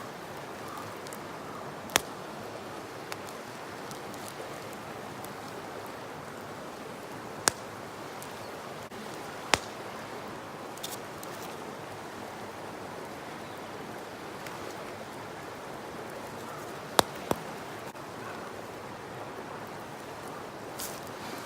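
A river flowing steadily, with a handful of sharp, short clicks or cracks scattered over it.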